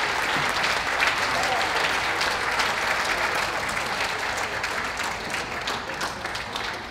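Audience applauding, with dense clapping that slowly dies away near the end.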